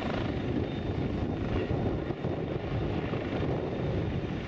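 Eurocopter EC135 helicopter hovering low, its main rotor and turbines running steadily.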